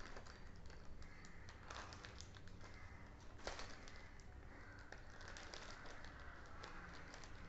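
Faint scissor snips and plastic crinkling as a padded plastic mailer is cut open, with scattered light clicks and one sharper click about three and a half seconds in.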